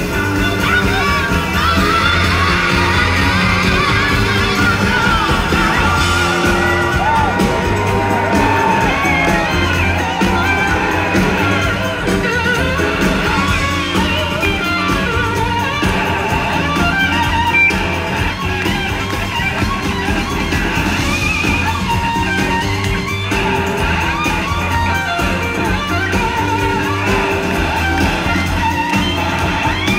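Live band music heard from the audience: a steady bass line and drums under electric guitar and singing.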